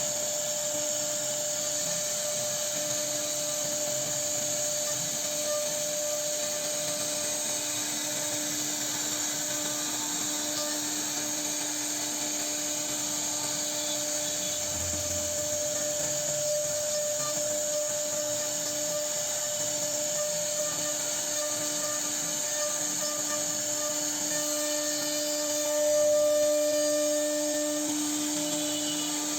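CNC router spindle running with a steady whine while cutting into wood, with a brief swell in loudness near the end.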